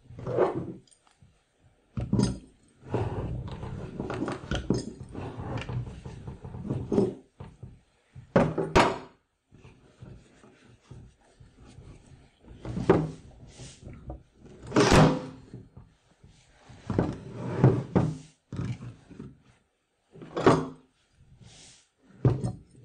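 Canvas being pulled and stapled onto a wooden stretcher frame: an irregular string of short thunks and handling noises every second or few, with the sharpest hit about fifteen seconds in.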